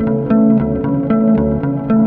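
Background instrumental music with a steady beat: evenly spaced plucked notes, about four a second, over a repeating bass line.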